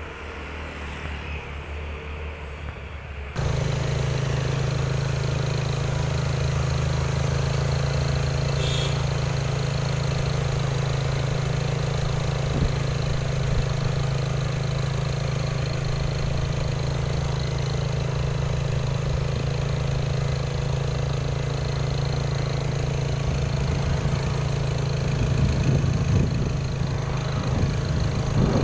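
Loaded Toyota Dyna light truck's engine running at a steady, low drone. It comes in suddenly about three seconds in, louder than the quieter traffic noise before it, and swells a little near the end.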